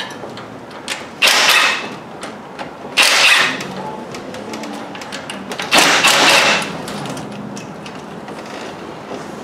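Hand tools working on the bare cylinder head while the camshafts are freed for removal: three short rasping bursts about two seconds apart, with light metal clicks and clinks between.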